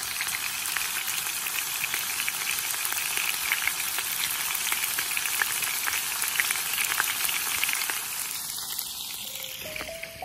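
Sliced meat sizzling and spitting in a black iron skillet over a wood fire: a dense hiss full of fine crackles that fades out near the end, where light music comes in.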